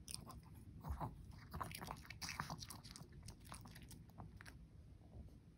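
A Pomeranian biting and chewing a small piece of food taken from chopsticks: a run of short crunchy chewing clicks in the first three seconds that thins out afterwards.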